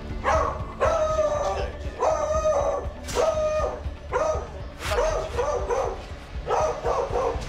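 Beagle barking and baying in a string of about seven long, howling barks, one after another: alarm barking at strangers in its home.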